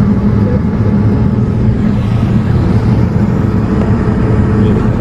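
Steady cabin noise inside a Boeing 787-8 airliner on approach: jet engines and air rushing past the fuselage, a loud, even, mostly deep rumble.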